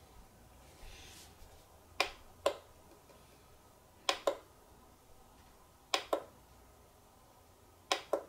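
A push button on a portable power station's front panel pressed and released four times, about every two seconds, each press giving a pair of sharp clicks.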